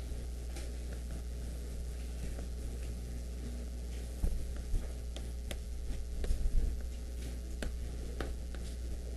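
Chalk tapping and scraping on a blackboard in short scattered strokes, with a few louder knocks about four seconds in and again past six seconds, over a steady low electrical hum.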